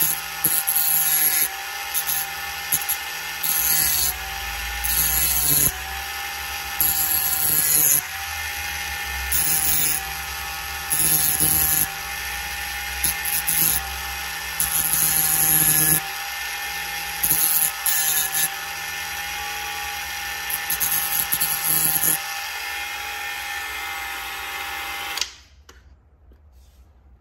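Ryobi One+ cordless rotary tool running at medium speed with a steady whine, its sanding disc scraping against an aluminium alloy wheel's curb rash in repeated short passes. The tool is switched off near the end.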